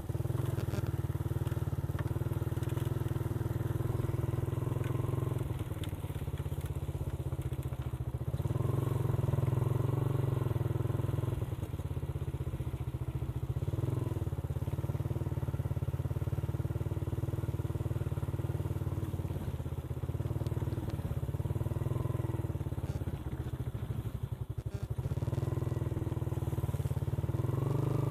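Motorcycle engine running while riding, its note rising and falling a few times.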